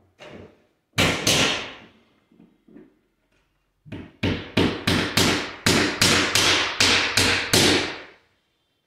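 Hammer blows nailing an angle trim onto a laminate-covered stair step: two hard strikes about a second in, then after a pause a steady run of about a dozen blows, roughly three a second, stopping just before the end.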